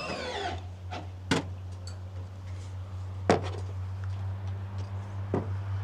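Three sharp knocks about two seconds apart as a gutter section is handled and hung, over a steady low hum.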